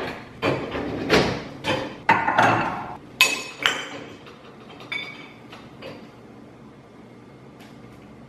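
Dishes and glasses knocking and clinking as a dishwasher is unloaded: a busy clatter of hard knocks for about four seconds, then only a few soft clicks.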